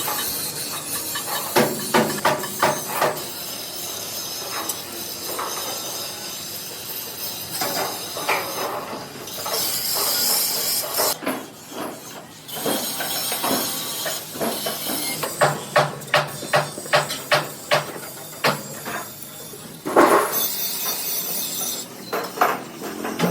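Runs of rapid hammer blows on metal, several strikes a second, with single knocks between them over a steady hiss.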